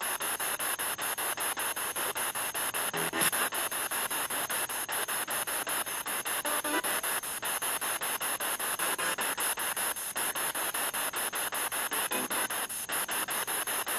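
Spirit box sweeping through radio stations: steady static, chopped several times a second as it jumps from channel to channel, with brief faint voice-like fragments. One fragment is taken as the reply 'It's green' to a question about a crystal's colour.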